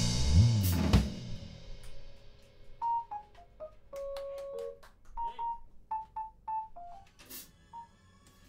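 Live band's closing drum-kit hits with cymbals ringing out for about a second, then a few short, isolated instrument notes and one more sharp hit near the end, as the tune winds down.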